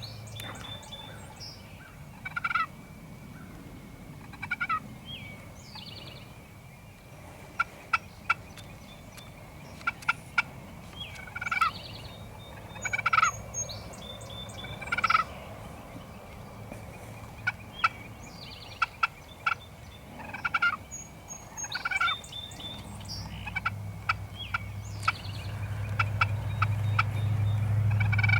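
Wild turkeys gobbling over and over at close range, with short sharp notes between the gobbles. A low rumble rises over the last few seconds.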